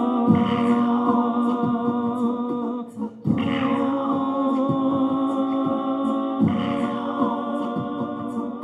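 Live music of a man singing long, wordless held notes into a microphone. The sung phrase breaks off briefly and starts again about every three seconds.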